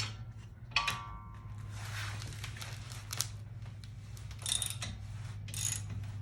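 Metal hand tools clinking and scraping, with a ringing clink about a second in and scattered short clicks and scrapes after, as a 15 mm wrench and socket are worked onto a suspension bolt to break it loose. A low steady hum runs underneath.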